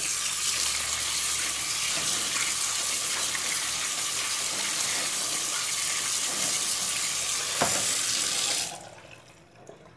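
Kitchen tap running onto boiled chicken livers in a plastic colander, the water splashing into a stainless steel sink; the water stops near the end.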